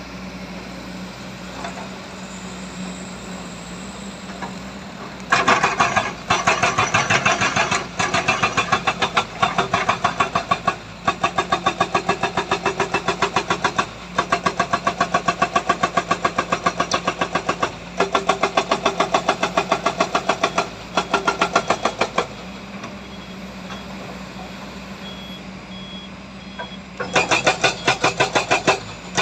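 Heavy diesel machinery with a steady engine hum throughout. From about five seconds in, a loud, rapid pulsing engine sound runs in stretches of a few seconds with brief breaks, stops for a few seconds, then starts again near the end.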